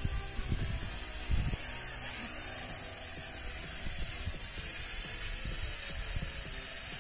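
Steady hiss with irregular low buffeting thumps of wind on the microphone, strongest twice in the first second and a half.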